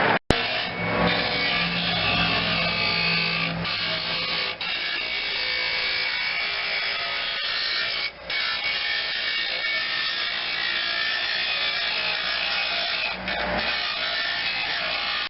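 A small high-speed power tool running steadily, with a few brief breaks.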